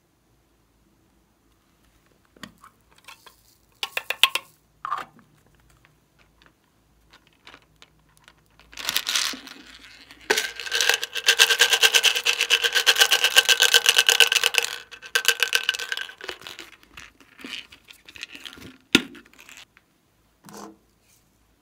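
A few clicks of a hollow plastic container being handled and opened. Then, about nine seconds in, a dense rapid rattle of small hard beads shaken out of it into the slime tray lasts about six seconds and is the loudest part.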